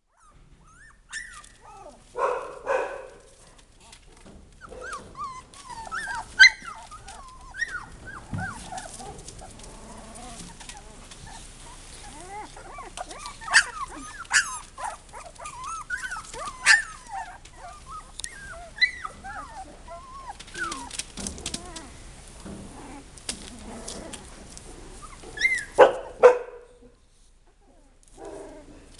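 A litter of Texas Heeler puppies whimpering, squealing and yipping, with louder barks about two seconds in and again near the end. Newspaper crinkles under their paws.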